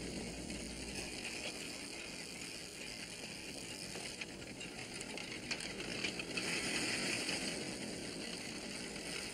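Several bicycles being ridden along a road: ratcheting ticks and light mechanical rattles over a steady hiss, a little louder for a second or so past the middle.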